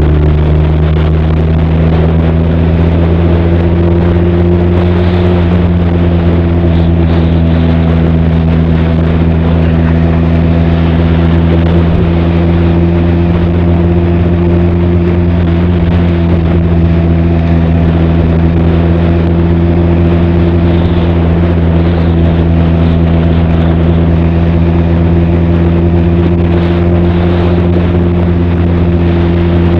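Benelli TRK 502's parallel-twin engine and exhaust running at a steady cruise. It is a constant drone with no gear changes or revving.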